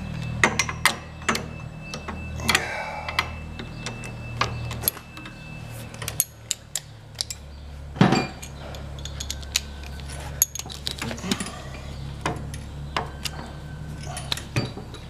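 Metal hand tools clicking and clinking as a socket wrench is fitted to and worked on the bolts of an aircraft brake caliper, with one louder clank about eight seconds in. A steady low hum runs underneath.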